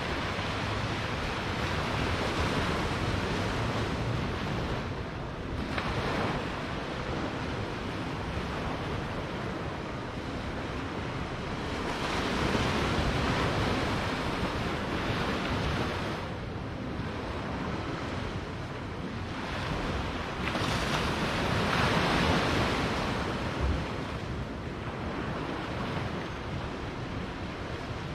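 Small waves breaking and washing up a sandy beach. The surf swells and falls back in three slow surges, the loudest a little past the middle.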